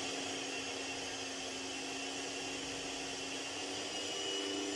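Panasonic electric stand mixer running steadily with a motor whine, its beaters whisking cake batter in the bowl; the pitch of the whine shifts slightly about four seconds in.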